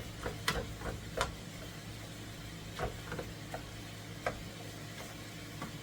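A cooking utensil clicking and tapping against a skillet as ground meat is stirred and broken up, about a dozen irregular light knocks, over a steady low kitchen hum.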